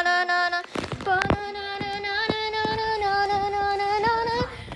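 A child's voice singing long held notes, the second one about three seconds long, with scattered knocks from the phone camera being handled and moved.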